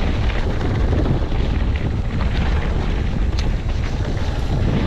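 Wind buffeting the microphone and tyre rumble as a hardtail mountain bike coasts down a rough, rocky trail, with a few small knocks.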